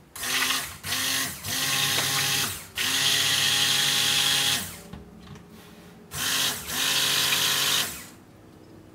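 Stick blender running in pulses, about six bursts each up to about two seconds long, with a longer pause around the middle, blending bentonite clay into melted soap-making oils and fats.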